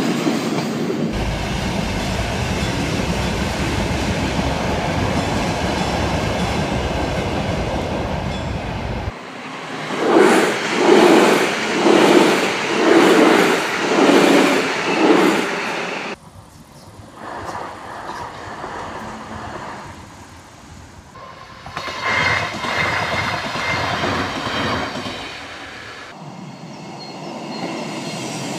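Trains passing level crossings in several short clips: a metro train, an articulated light-rail tram and a commuter train running by over the tracks. During the tram's pass there is a rhythmic knocking about once a second.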